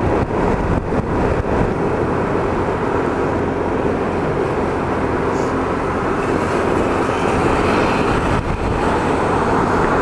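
Yamaha X-City 250 scooter running at road speed on a wet road: steady engine drone mixed with wind noise and tyre hiss.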